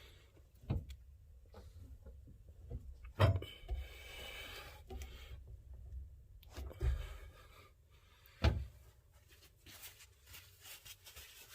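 Hand tools working a brass air-ride fitting: a wrench being turned and repositioned, with a few sharp metal knocks and clinks over low scraping and rubbing.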